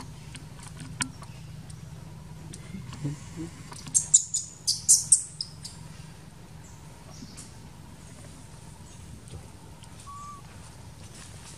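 A quick run of high, sharp bird chirps about four seconds in, over a steady low background hum, with a short faint whistle near the end.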